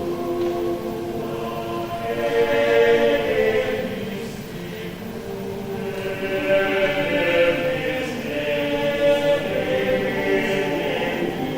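Catholic choir singing, many voices holding sustained chords. The singing swells about two seconds in, eases off around the middle, and builds again from about six seconds.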